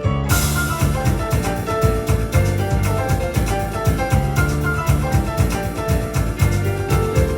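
Yamaha Electone playing an up-tempo instrumental with piano, bass and drum voices together. The full band texture with drums and cymbals comes in just after the start, following a sparser piano passage.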